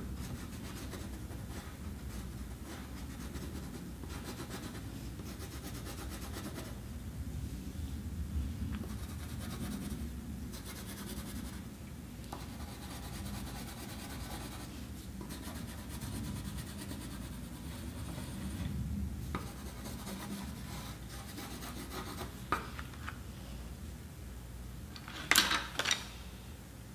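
Colored pencil rubbing and scratching steadily on paper as a drawing is shaded in. Near the end comes a short clatter of knocks as the pencils are pushed back into their cardboard box.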